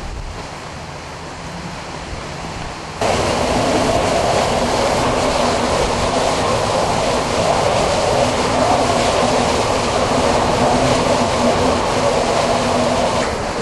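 Tropical storm wind and rain: a steady rushing noise that jumps abruptly louder about three seconds in and holds, with a faint low hum underneath.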